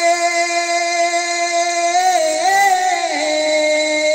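A young man's voice holding one long sung note of a naat at a microphone. About two seconds in it wavers into a short ornament, then settles on a slightly lower held note.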